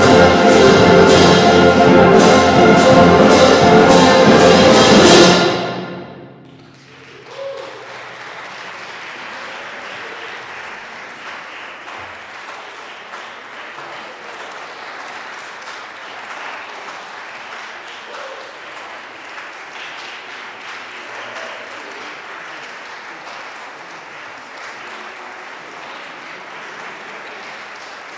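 A high school concert band of woodwinds and brass plays a loud final chord under repeated percussion strokes. It cuts off about five and a half seconds in and rings away in the reverberant church. Steady audience applause follows and continues.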